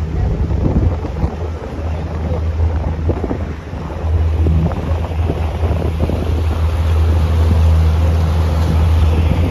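Small open tour boat under way: its engine runs with a steady low hum that eases briefly about three and a half seconds in, mixed with wind buffeting the microphone and water rushing past the hull.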